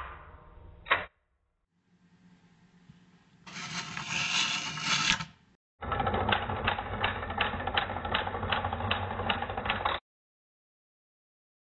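Rotary telephone dial, slowed to about quarter speed: it is wound round to the finger stop, then runs back, its pulsing contacts sending an even train of clicks for about four seconds over a low hum. A sharp click from the step-by-step selector switch comes about a second in.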